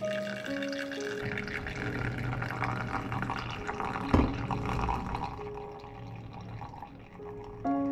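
Hot water poured from a kettle onto coffee grounds in a paper-filter dripper, trickling and dripping into a glass server. There is one sharp knock a little past halfway, and soft background music notes near the start and end.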